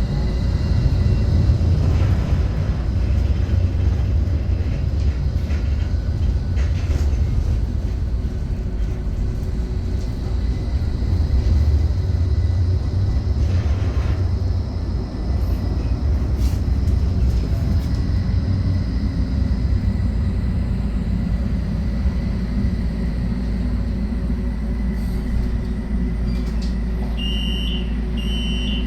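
Steady low rumble inside a modern tram's cabin. Near the end, a run of evenly spaced high electronic beeps starts, about one a second.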